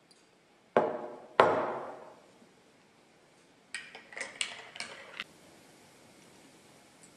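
A ceramic milk jug set down on a stone tabletop with two sharp knocks, each ringing briefly. Then a teaspoon stirs a ceramic mug, with several quick clinks against its sides.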